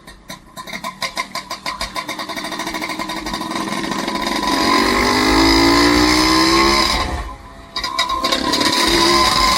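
Vehicle engine accelerating: its firing pulses quicken into a rising whine. It drops off sharply about seven seconds in and picks up again a second later.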